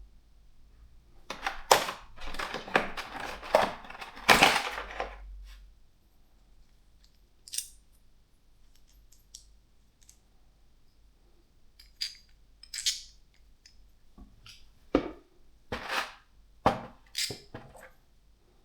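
Handling of an action-camera neck mount and its packaging: a burst of rustling and clicks, then a series of separate sharp clicks and snaps as its parts are fitted and adjusted.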